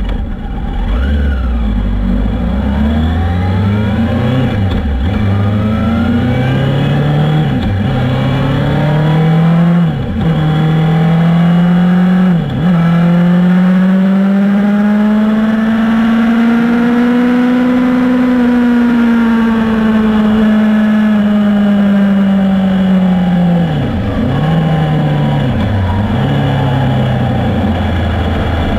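Sport motorcycle engine heard from its onboard camera, accelerating hard through the gears with a quick upshift roughly every two and a half seconds. It then holds high revs, rising slowly in pitch before easing off, and near the end drops through a few quick downshifts to a lower note as the bike slows for a corner.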